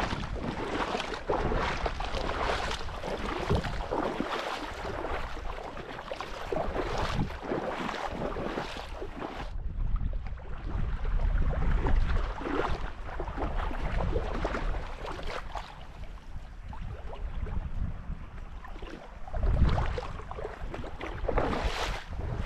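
Rushing spring-runoff water, a steady noisy rush, with wind buffeting the microphone in low gusts, the strongest near the end.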